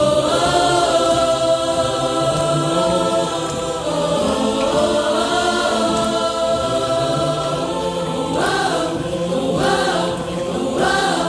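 Youth barbershop chorus singing a cappella in close harmony, holding one long chord for about eight seconds, then a few shorter sung phrases.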